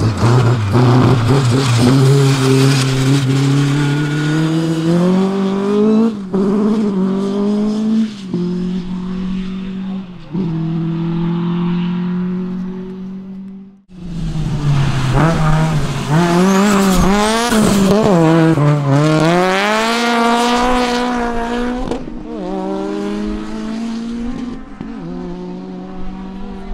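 Competition car engines at full throttle on a sprint course, the pitch climbing and then stepping down at each gear change. About halfway there is a sudden cut, then another car's engine revs hard, its pitch swinging up and down quickly as the throttle is worked.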